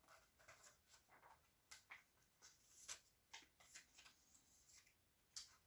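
Near silence, with faint scattered rustles and clicks of thin Bible pages being turned.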